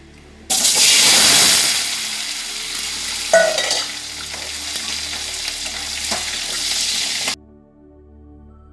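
Cut carrots sizzling as they are tipped into hot oil in a frying pan, loudest in the first second after they hit the oil. A metal utensil clinks against the pan a few seconds in. The sizzle cuts off suddenly near the end.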